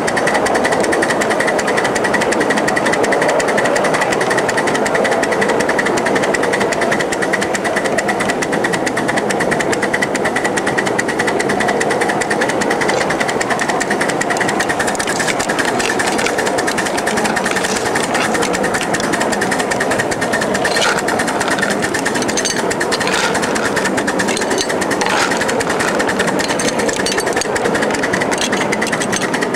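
A 1-inch scale 0-4-0 live steam switcher locomotive running along the track, a steady rapid mechanical clatter, with a few sharper clicks in the second half.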